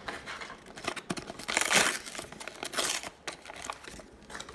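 Clear plastic blister package crinkling and crackling as it is pried open and pulled off its cardboard backing, in irregular bursts, loudest about a second and a half in.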